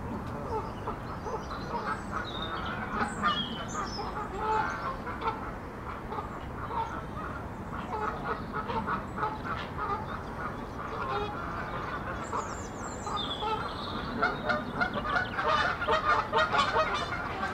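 Waterfowl calling in a wetland: many overlapping honking calls, growing busier in the last few seconds, with a small bird's chirping song above them now and then.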